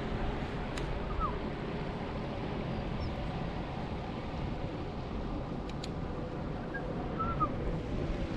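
A motor running steadily with a low rumble under wind noise, with a few brief high chirps.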